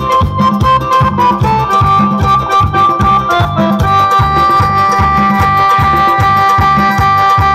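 Punta band playing an instrumental passage: an electronic keyboard holding sustained chords over a steady hand-drum beat of about four strokes a second.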